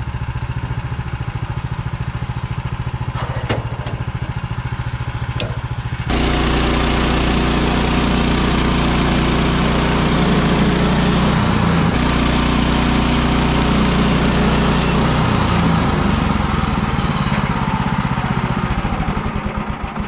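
Small gasoline engine running at a steady speed. About six seconds in it gets abruptly louder and rougher, then eases back somewhat after about fifteen seconds.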